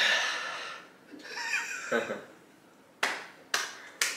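Breathy laughter fading out, then three hand claps about half a second apart near the end.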